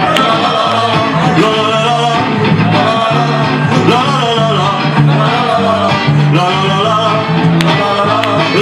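Live music: men singing together into microphones over an accompaniment with electric guitar.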